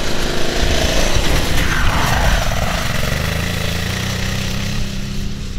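Cagiva Elefant 900ie's Ducati 900 V-twin engine pulling hard under load as the bike climbs a steep grassy slope in second gear. A rush of noise joins it about two seconds in.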